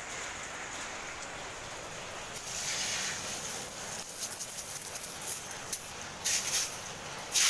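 Hail and heavy rain falling: a steady hiss that grows louder about two and a half seconds in, with scattered sharp hailstone hits that come more often near the end.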